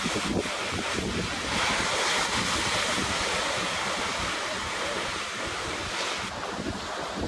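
Sea surf washing onto the beach, with a louder breaking wave hissing for about five seconds in the middle, and wind buffeting the microphone throughout.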